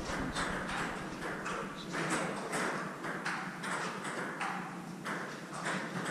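Table tennis rally: the ball clicking off the paddles and the table in quick alternation, about three sharp clicks a second.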